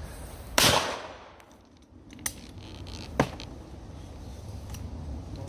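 A single shotgun shot about half a second in, followed by a short echo. A couple of seconds later come two sharp clicks, the gun being opened after the shot.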